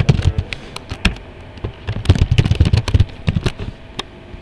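Typing on a computer keyboard: an irregular run of quick key clicks, densest about two to three seconds in.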